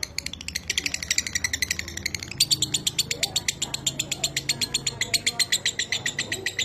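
Lovebird chattering in a long 'ngekek' run: a rapid, unbroken string of sharp, dry chirps at about ten a second.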